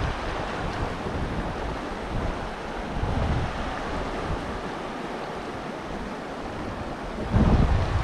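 Wind gusting and buffeting the microphone, with low rumbles that swell about three seconds in and again near the end, over the steady rush of a mountain creek.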